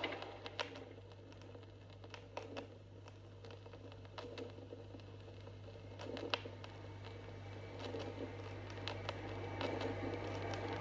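Quiet run-out groove between tracks on a vinyl sound-effects LP: scattered surface clicks and crackle over a steady low hum, with a faint noise slowly building near the end.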